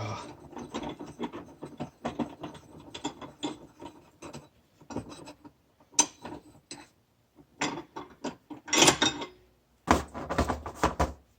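Metal parts of a Yamaha Wolverine secondary clutch clicking and scraping as the spring and sheave are turned by hand to line up alignment marks. The clicks are irregular and come fast at first, then more sparsely, with a louder scrape near the end.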